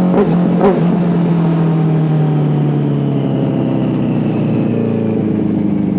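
Benelli TNT 600's inline four-cylinder engine running loud through its dual exhaust on the road, low in the gears. Two brief rev surges come in the first second, then the engine note holds steady and slowly falls in pitch as the bike eases off.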